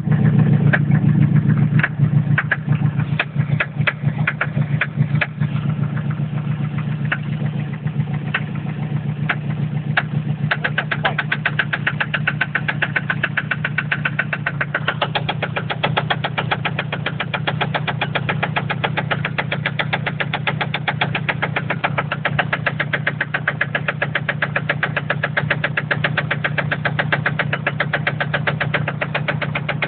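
Toyota MR2's naturally aspirated 2.0 litre 3S-GE inline-four engine running with a knock. Irregular knocks over the first ten seconds or so settle into a fast, even tapping. The owner does not know the cause.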